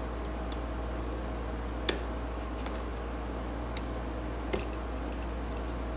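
A screwdriver picking and scraping at melted rubber stuck to a portable band saw's metal wheel in a tub of solvent, with faint ticks and two sharp metal clicks, about two seconds in and again at four and a half seconds. Behind it runs the steady hum of a room air conditioner.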